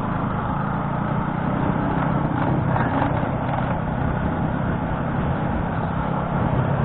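Motorcycle engine running at a steady speed while riding, its low drone mixed with wind and road noise.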